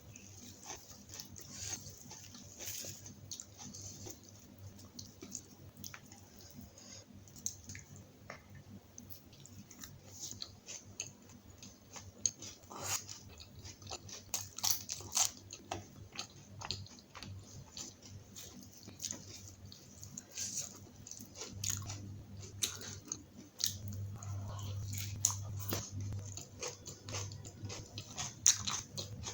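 A person biting and chewing butter naan, kadhai paneer and salad, with many short crunchy bites and clicks. A low steady hum comes in about three-quarters of the way through.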